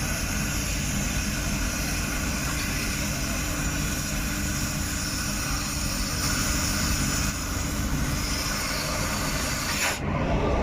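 Steady hiss of a metal-cutting torch over a low workshop rumble, as steel plate is cut for a flange; the high hiss cuts off suddenly near the end.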